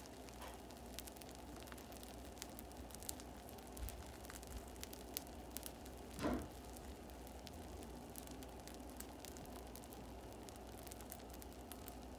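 Baghrir batter of semolina, flour and yeast cooking in a nonstick frying pan: a faint sizzle with scattered tiny pops and ticks as bubbles form and burst in the batter, over a steady low hum. A brief louder sound comes about six seconds in.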